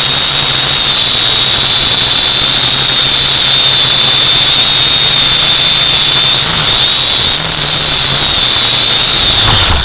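Quadcopter drone's motors and propellers running: a loud, steady high-pitched whine over a hiss, with a low hum beneath. The pitch rises briefly twice near the end, and the sound cuts off suddenly at the close.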